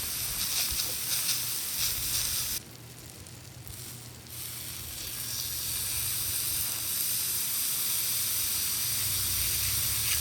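Hamburger steak and vegetables sizzling on a hot iron griddle plate, being browned. A steady hiss with a few crackles early on dips for about two seconds near the three-second mark, then builds back.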